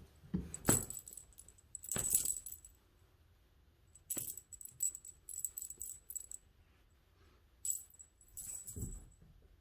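Small metal tags on a cat's collar jingling in short bursts, again and again, with a few soft knocks, as the cat eats from its dish.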